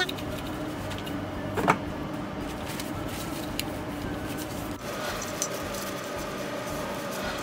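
Light rustling and small clicks of a pair of metal-frame eyeglasses being wiped clean with a tissue, with one sharper click about two seconds in, over a steady hum.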